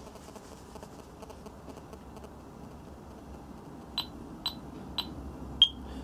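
A Yale HSA6400 burglar alarm panel beeping as it arms on a remote text command and starts its exit countdown. About four seconds in come three short high beeps half a second apart, then a fourth, slightly lower beep.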